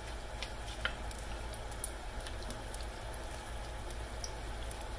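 Apple fritter batter frying in hot oil in a stainless steel pan: a steady sizzle with scattered small pops and crackles.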